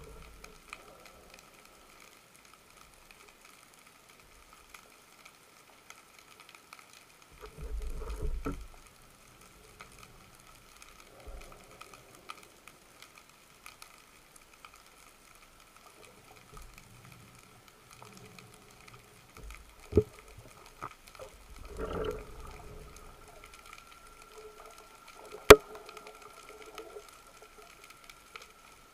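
Underwater sound picked up through an action camera's housing during a spearfishing dive. It is mostly quiet, with a faint steady whine, two swishes of water movement and two sharp clicks near the end, the second click the loudest.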